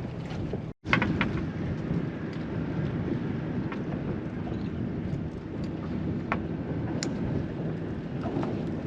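Wind buffeting the microphone on a boat, with water lapping and a few short knocks or splashes. The sound cuts out completely for a moment just under a second in.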